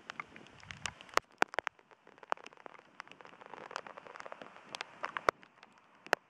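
Graupel shower: small soft-hail pellets striking with many sharp, irregular ticks over a steady hiss of falling precipitation, the hiss easing after about five seconds.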